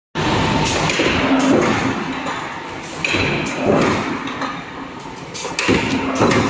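Steel angle post production line running: steady machine noise broken by irregular metallic knocks and clanks.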